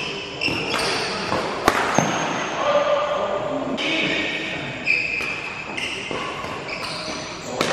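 Badminton rally in a hall: rackets striking the shuttlecock with sharp cracks a few times, amid short high squeaks of shoes on the court mat and voices in the background.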